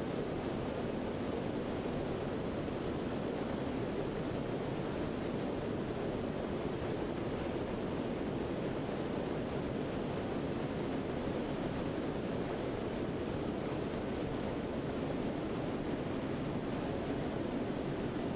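Steady cabin noise of a C-130 Hercules four-engine turboprop in flight: an even, unbroken rush of engine and airflow noise, heaviest in the low-middle range.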